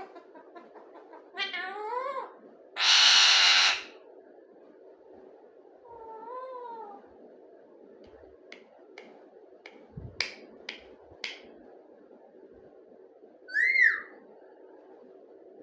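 Pet parrot calling in separate bursts: wavering rising-and-falling calls, a loud harsh squawk about three seconds in, a run of short sharp clicks in the middle, and a brief arched call near the end.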